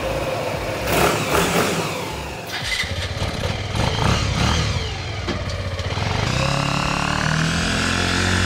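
The motorcycle engine of a homemade three-wheeler is started and run. From about six seconds in it settles into a steady running note that rises slightly in pitch as the vehicle pulls away.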